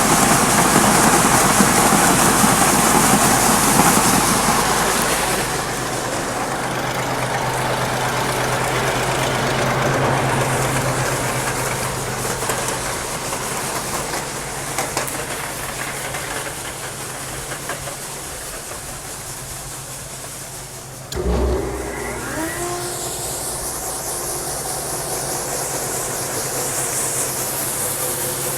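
Engine running steadily under a loud rushing hiss, as of grain being moved into a bin. About 21 seconds in there is a sudden thump, followed by a short gliding whine, and the running carries on.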